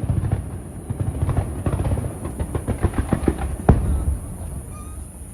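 Aerial fireworks crackling: a rapid run of many small pops, with one sharp bang after about three and a half seconds, then dying away.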